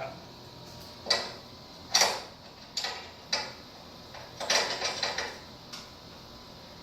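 Irregular sharp metal clicks and clanks, about eight in all with a small cluster just before 5 s, from steel winding bars and hardware being worked on a garage door's torsion spring and winding cone.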